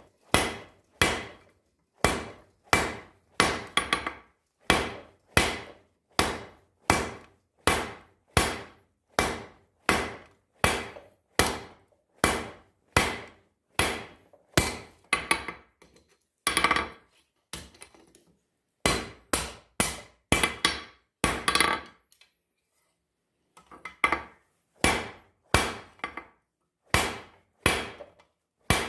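Hand hammer striking hot steel bar on an anvil in steady forging blows, about one and a half a second, each with a short metallic ring. The blows stop briefly twice, near the middle and again a little later.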